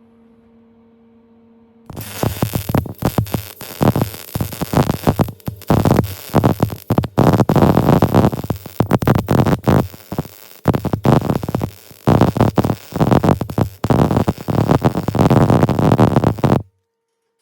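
MIG welder arc crackling and buzzing in a string of bursts with short breaks: a nut being welded onto a broken bolt stub so it can be turned out. It starts about two seconds in and cuts off sharply near the end.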